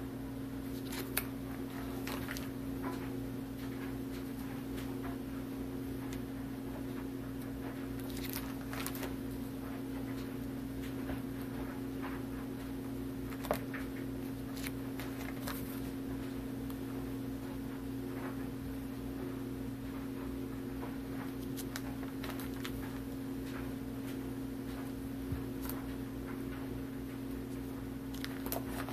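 Plastic binder pages holding sleeved trading cards crackle and rustle now and then as they are handled and turned, over a steady hum.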